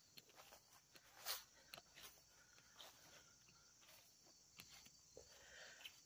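Near silence: faint outdoor ambience with a few soft footsteps.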